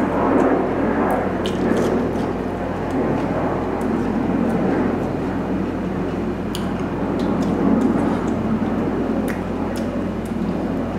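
Close-miked chewing and wet mouth sounds of eating rice and mutton curry, with small scattered clicks and smacks. A steady low hum runs underneath.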